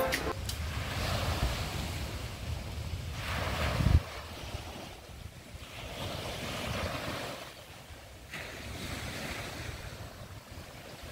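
Small waves washing onto a sandy beach, swelling and fading every few seconds. Wind rumbles on the microphone for the first four seconds and ends in a sharp low bump.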